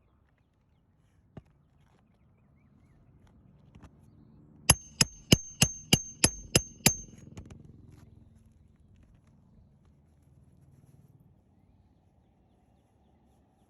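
Hammer driving a roofing nail through asphalt shingles: eight quick strikes, about three a second, with a high metallic ring.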